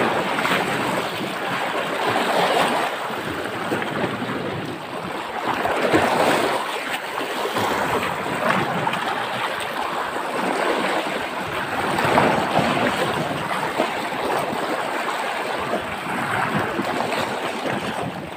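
Sea water washing over shallow reef rocks, the wash swelling and easing every few seconds, with wind buffeting the microphone.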